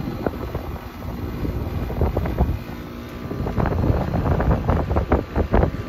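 Central air conditioner's outdoor condenser unit running normally, compressor humming and the ECM condenser fan blowing air, now that its burnt capacitor terminal and wire have been replaced. Wind noise on the microphone grows in the second half.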